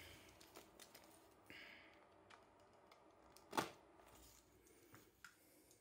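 Faint handling of a cardboard graphics-card box as it is being opened: a brief rustle about one and a half seconds in and a single sharp click a little past halfway, otherwise near silence.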